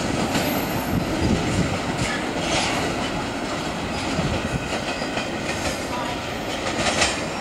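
Tail end of a long double-stack intermodal freight train rolling away on the rails: a steady rumble of steel wheels with scattered clicks over rail joints, a cluster of sharper clicks near the end.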